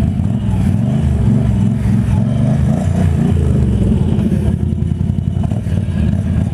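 Can-Am Renegade ATV engine running hard while being ridden, its pitch rising and falling with the throttle.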